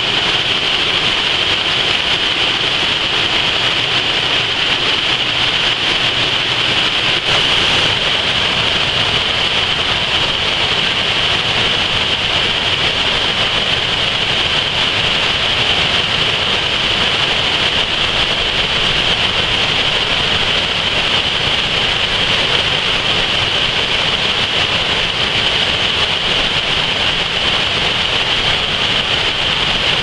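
Mountain waterfall cascading over rock: loud, steady rushing of white water, with no change in strength.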